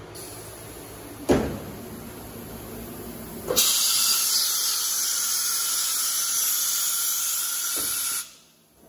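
Compressed air hissing loudly and steadily for about four and a half seconds, starting abruptly and cutting off suddenly. A single sharp knock comes a little over a second in, before the hiss.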